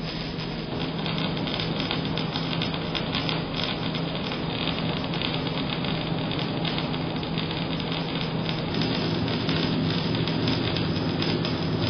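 Electric welding arc crackling and sizzling continuously, with a steady low hum underneath.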